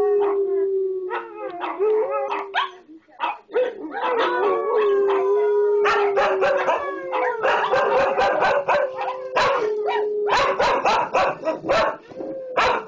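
Several dogs howling in a long, overlapping chorus, with sharp barks and yips coming thick and fast from about six seconds in. The dogs are set off by the sound of other dogs in a video.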